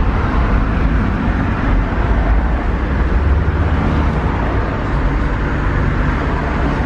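Steady low rumble of a moving double-decker bus, heard from its upper deck: engine and road noise.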